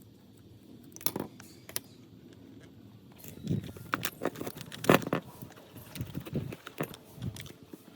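Irregular clicks, knocks and scrapes of hard parts and tools being handled, sparse at first and busier in the second half, with the loudest knock about five seconds in.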